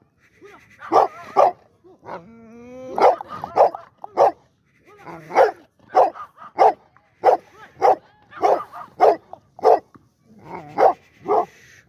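A dog barking repeatedly, about one or two barks a second, with a drawn-out whine about two seconds in.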